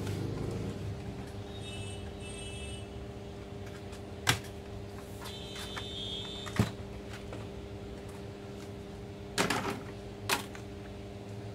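Plastic snap clips of a laptop's bottom cover clicking loose as the cover is pried open with an opening tool: a few sharp clicks spread out, two of them close together near the end, over a steady low hum.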